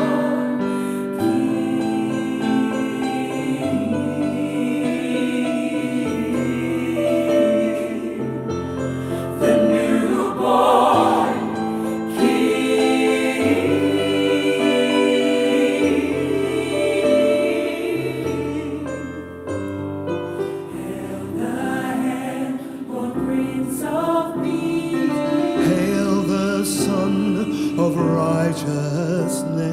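A gospel choir singing.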